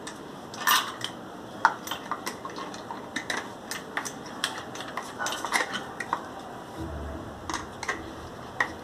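Pliers clinking against a steel nut and bolt as the nut is tightened, in irregular small metallic clicks.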